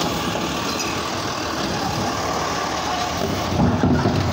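Automated side-loader garbage truck running while its hydraulic arm empties a wheeled trash cart into the hopper and sets it back down, with a louder low rumble near the end.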